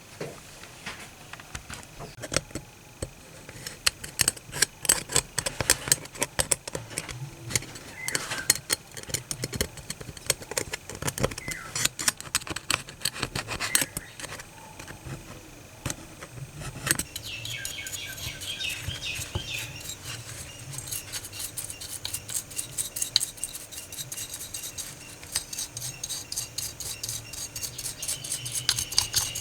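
Small metal parts and hand tools clicking and scraping against each other in irregular runs of sharp ticks. About halfway through, a steady hum and some higher ringing tones join in.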